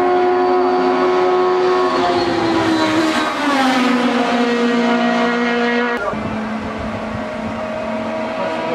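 Racing sports-prototype engine at high revs passing close by, its note falling as it goes past about three seconds in. The sound then cuts abruptly to another prototype's engine approaching, its note slowly rising.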